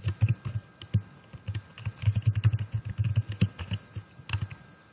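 Typing on a computer keyboard: a run of quick, uneven keystrokes that stops about four seconds in.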